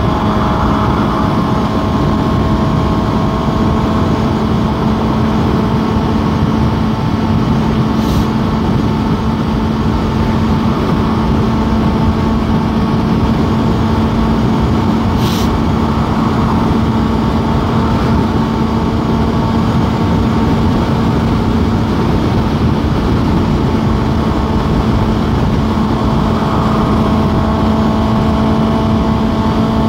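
Suzuki GSX-S750's inline-four engine running at a steady cruising speed, its note holding the same pitch throughout, under heavy road and wind noise. Two short clicks, about eight and fifteen seconds in.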